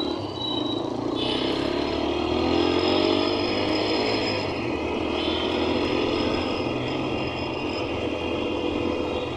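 Motorcycle engine running while riding, under a steady rush of wind and road noise. The engine note rises about a second or two in.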